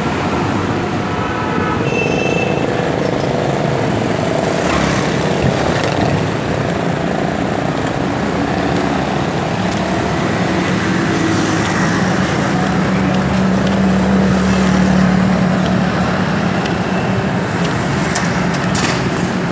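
Steady street traffic noise from passing motor vehicles, with a brief horn toot about two seconds in and a passing engine's steady hum that is loudest from about twelve to sixteen seconds in.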